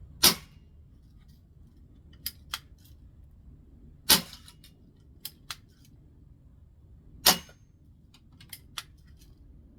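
Vintage Daisy 1200 CO2 BB pistol fired three times, about three to four seconds apart, each shot a sharp pop. Between shots come pairs of lighter clicks, the pistol being charged for the next single shot.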